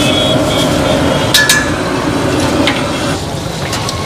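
Street-stall kitchen clatter: a few sharp metal clinks, two close together about a second and a half in, over a steady background of street noise.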